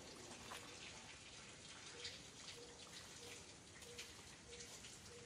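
Near silence: faint outdoor ambience, a low hiss with scattered soft ticks and crackles. In the second half a faint short low tone repeats about every two-thirds of a second.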